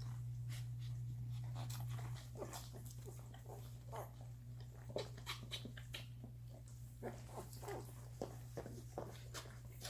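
Week-old Doberman puppies squeaking and whimpering in short, frequent cries, with small clicks among them, over a steady low hum.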